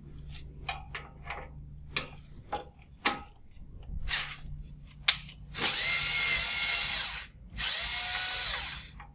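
A cordless power screwdriver runs in two bursts of a second or so each, a little past halfway and again near the end, backing out screws from the terminal block on the back of a protection relay chassis. Light clicks and handling of the tool come first.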